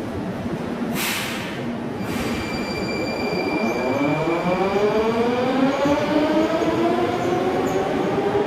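Subway train pulling away: two short hisses of air, then the traction motors' whine rising steadily in pitch over the rumble of the car as the train speeds up.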